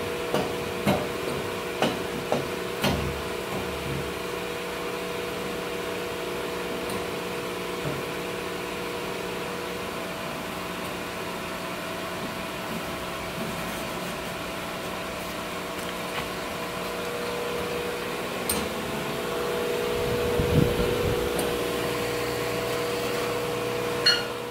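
A portable bandsaw mill's motor running steadily at idle, a constant hum, with scattered knocks as the log is clamped on the mill bed and a heavier thump about three-quarters of the way in.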